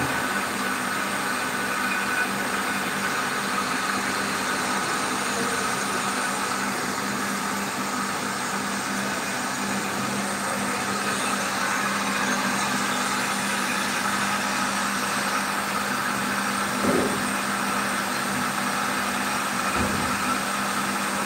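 Water Net RO 250 Super commercial reverse-osmosis plant running, its high-pressure pump motor giving a steady, even hum with a constant hiss.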